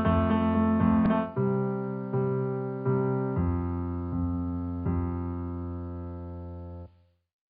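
Closing music: sustained keyboard chords that change every second or so and fade slightly, then cut off suddenly about seven seconds in.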